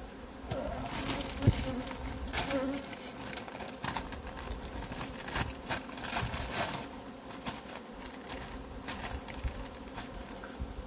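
A colony of honeybees buzzing steadily over the open frames of a hive, with the intermittent crinkling of a plastic sheet and a plastic-wrapped pollen patty being laid over the top bars.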